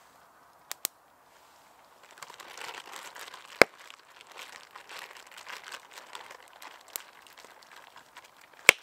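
Plastic bag crinkling and rustling as sticky dumpling dough is squeezed out of it by hand, starting about two seconds in. A few sharp clicks cut through, the loudest about a third of the way in and just before the end.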